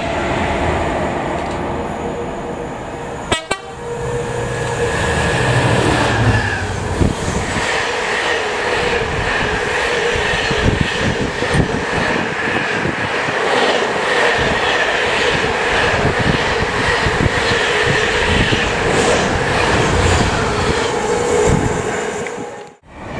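Container freight train passing close by: a steady rumble with rapid, irregular clattering of wagon wheels over the rails and a steady high ringing tone. A sharp click comes about three and a half seconds in.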